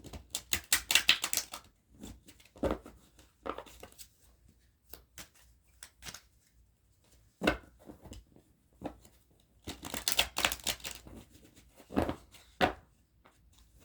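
Tarot cards being shuffled by hand: a burst of rapid riffling near the start and another about ten seconds in, with single sharp taps between.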